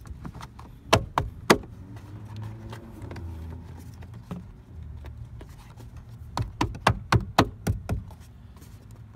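Plastic interior trim panels of a Dodge Avenger being pressed and tapped into place by hand. There are two sharp knocks about a second in, then a quick run of clicks and taps about two-thirds of the way through as the sill and kick-panel clips seat.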